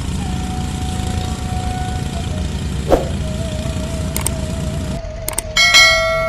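Small engine running steadily under a thin background music melody. About five seconds in, the engine sound cuts off abruptly and a sharp, ringing musical hit sounds.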